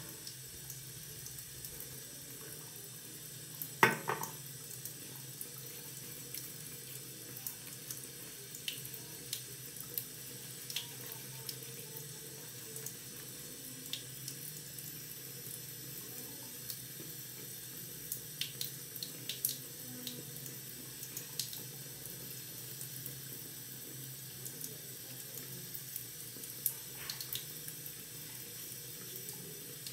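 Bathroom tap running steadily into a sink, with scattered small clicks and one sharper knock about four seconds in.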